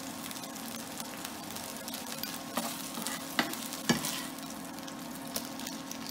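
Baby corn sizzling in a hot non-stick frying pan while a slotted metal spatula scrapes and taps against the pan, with a few sharp knocks in the middle, the loudest about four seconds in, as the pieces are lifted out. A steady low hum runs underneath.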